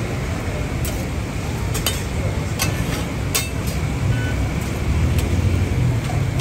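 Road traffic running steadily, a low rumble, with a few short clinks over it.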